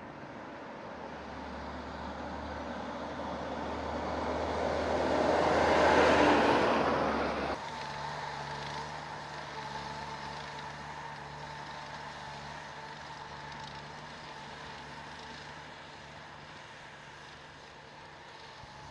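Heavy truck passing close by: its noise swells to a loud peak about six seconds in and drops off sharply. A steady, lower engine hum follows and slowly fades.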